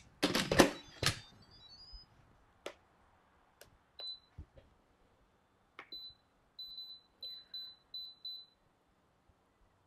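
Instant Pot electric pressure cooker being closed and programmed: the lid clatters as it is set on and locked in the first second, a couple of clicks follow, then the control panel gives short high beeps as its buttons are pressed, one about four seconds in, another at six, and a quick run of beeps near the end as high pressure for 10 minutes is set.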